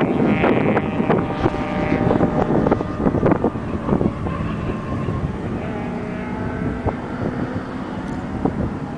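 Toyota Cressida MX83's 1JZ straight-six engine held at high revs while the car drifts, heard from well across the track with wind buffeting the microphone. The engine note is loudest at first and eases off as the car pulls away.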